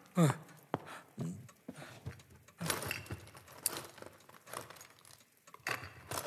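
Someone searching a room by handling and moving small objects: a scattered series of clinks, rattles and knocks.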